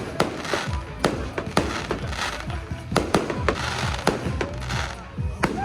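Fireworks display: a rapid run of sharp bangs from bursting shells, about two a second, with spells of crackling between them.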